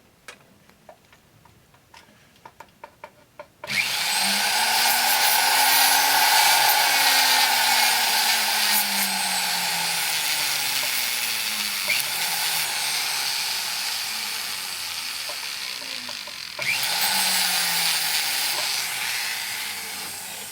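Handheld rotary tool spinning a small custom-cut sandpaper disc, grinding away an excess solder blob inside a small soldered metal ring. After a few seconds of light ticks from handling, the motor starts, its pitch rising and falling as the speed changes; it stops briefly near the end, starts again, and fades out.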